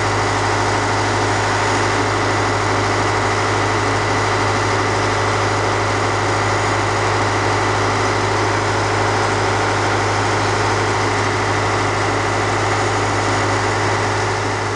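Heavy diesel engine idling steadily with a deep, even hum, beginning to fade at the very end.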